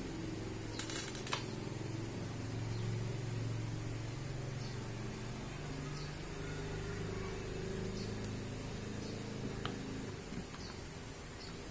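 Steady low background hum, with a few faint light clicks from the plastic shells of a cordless drill housing being handled and fitted together.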